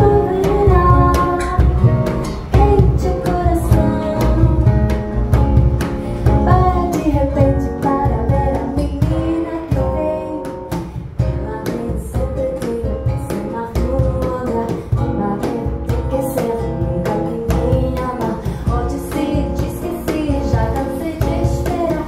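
A woman singing a bossa nova melody live, accompanied by strummed acoustic guitar, with light percussion clicks running through it.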